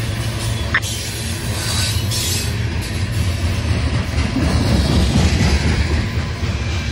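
Loaded coal cars of a freight train rolling past at close range: a steady low rumble of wheels on rail, with a brief wheel squeal about a second in and the rumble growing louder past the middle.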